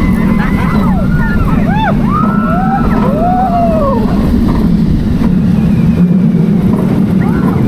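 Roller coaster train running along its track, a loud steady rumble. Short high sounds that rise and fall in pitch come over it several times in the first few seconds, and again near the end.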